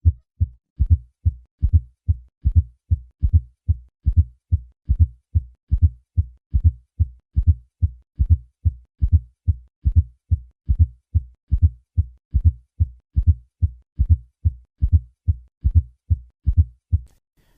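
Heart sounds with a fourth heart sound (S4 gallop): a low-pitched, late diastolic sound just before the first heart sound, added to normal first and second heart sounds to make a triple rhythm. The beats come as short, low thuds in a steady, even rhythm. A fourth heart sound is most commonly caused by hypertension.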